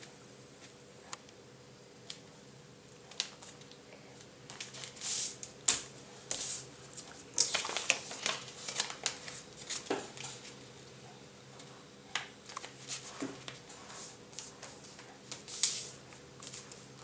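A sheet of paper being folded and creased by hand into a paper airplane: soft rustling and crinkling with scattered small clicks and brushing strokes. The rustles come in clusters, busiest around the middle and again near the end.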